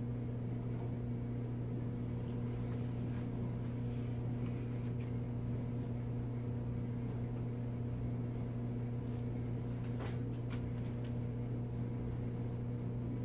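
Steady low electrical hum from the boiler-room equipment, with a few faint ticks.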